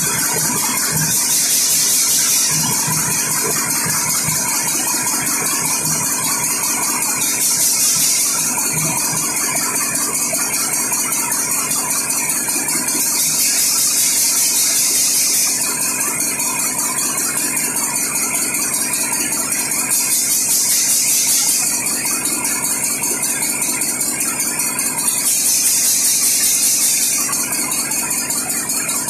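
Very large in-line, compressed-air-started diesel generator engine running steadily, with a loud, dense, rapid clatter. A high hiss swells and fades about every six seconds.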